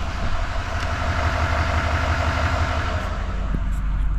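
A 6.6 L Duramax L5P V8 turbodiesel idling with a steady low rumble, just after being started and put in reverse, with a hiss over it that fades about three seconds in.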